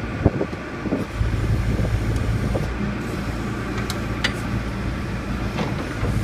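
John Deere backhoe loader's diesel engine running, stepping up to a louder, heavier note about a second in as the backhoe arm and bucket are worked. A couple of short sharp clanks come through over it.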